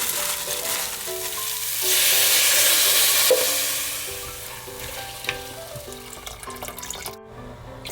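Food sizzling in hot oil in a frying pan, swelling louder about two seconds in and fading away after about four seconds. Soft background music runs underneath.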